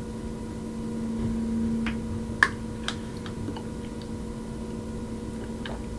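A few faint, scattered clicks and taps over a steady electrical hum.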